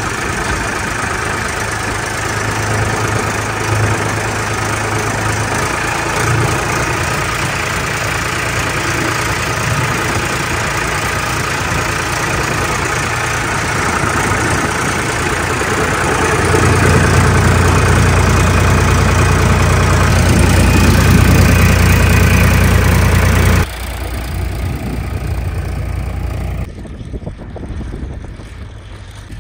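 Tractor engine running steadily while pulling a groundnut seed planter, heard close up on the machine. It gets louder for several seconds past the middle, then drops abruptly near the end to a quieter engine sound.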